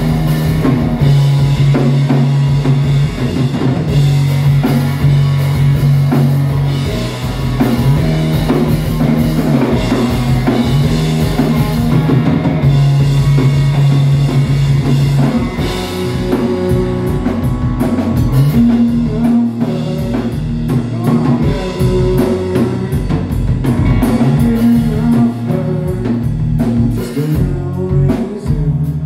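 Rock music with a drum kit and guitar playing over sustained bass notes.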